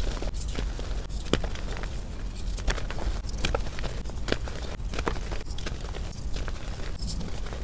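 Soft, air-dried reformed gym chalk squeezed and crumbled by hand into powder: irregular soft crunching and crackling with small snaps.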